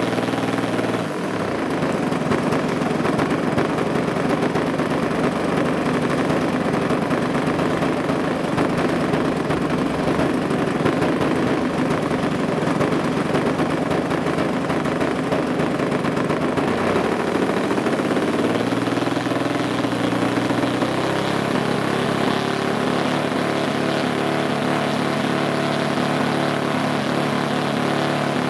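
Engine of a large radio-controlled aerobatic plane running on the ground, held back by hand. It runs rough and uneven for most of the stretch, then its pitch steps up and it settles into a smoother, steady run about two-thirds of the way through.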